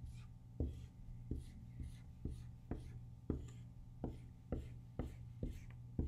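Dry-erase marker drawing tally marks on a whiteboard: a series of short strokes, each a sharp tap of the felt tip with a faint scratchy squeak, at about two strokes a second.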